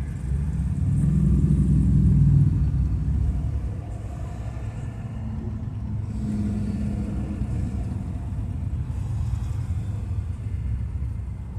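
Low rumble of traffic heard from inside a car, swelling loudest about one to three seconds in as the cruiser motorcycles alongside pull away, then settling to a steady drone.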